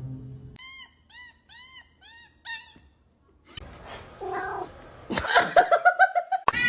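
Cat meowing: about six short, high mews in quick succession, then after a pause a longer wavering yowl.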